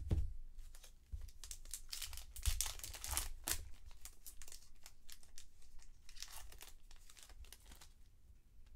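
Glossy trading cards being flipped through by hand, each card sliding off the stack with a quick papery rustle. The rustles bunch up about two to three seconds in and again around six seconds in.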